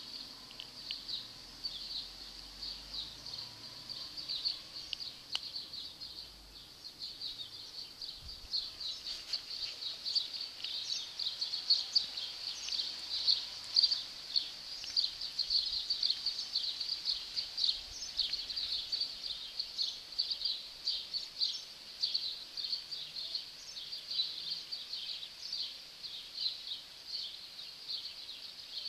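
Many small birds chirping continuously in a high, busy chatter, growing denser and louder about nine seconds in.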